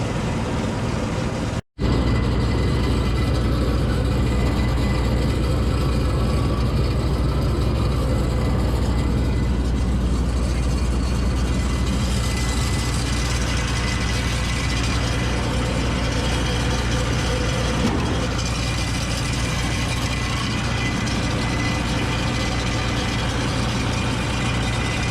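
John Deere 955 combine harvester running at a steady speed, its engine and machinery turning over evenly, after a brief break about two seconds in.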